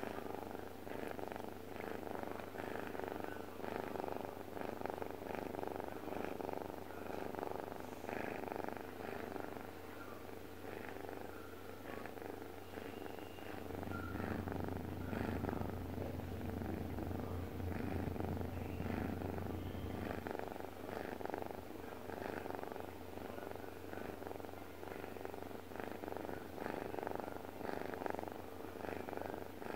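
Domestic cat purring: a steady, rhythmic rumble that swells a little for several seconds midway through.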